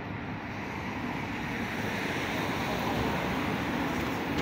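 Street ambience: a steady hiss of road traffic that grows louder about two seconds in.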